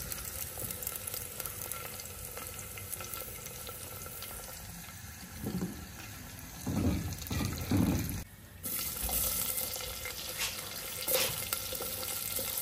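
Hot oil sizzling steadily in a clay handi after potato pieces have been fried in it, with a few dull bumps of handling around the middle.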